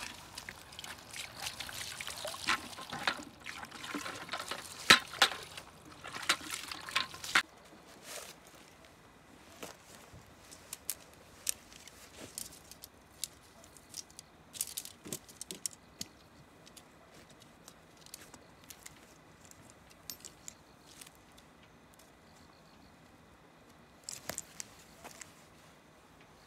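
Liquid pouring and splashing with clattering knocks and clicks for about seven seconds, then after a sudden change only scattered clicks and taps.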